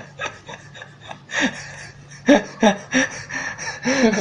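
A person's short breathy vocal sounds, gasps, snorts and chuckles, several in a row. The loudest comes a little after two seconds in.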